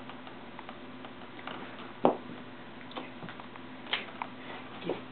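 A few scattered light taps and clicks from a kitten batting and pouncing at a plastic highlighter on carpet, with one sharper knock about two seconds in, over a faint steady hum.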